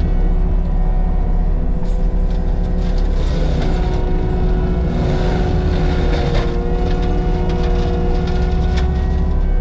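Heavy-equipment diesel engine running steadily, with a constant whine over it and scattered clanks.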